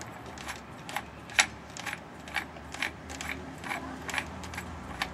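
Light hammer taps on a ceiling fan's metal motor housing, about two a second, the loudest about a second and a half in, knocking a part loose so it comes out.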